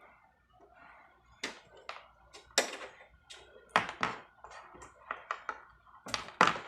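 Irregular sharp clicks and knocks from a desktop computer case being handled and opened, about a dozen in quick succession, the loudest a little past halfway and near the end.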